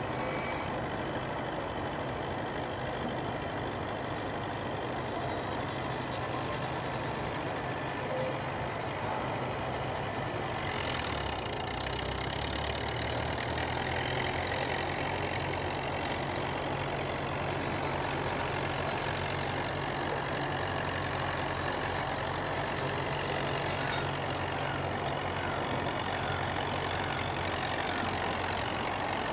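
Nuffield 460 tractor engine running steadily while pulling a loaded manure spreader. About ten seconds in, the engine note changes and the sound grows brighter.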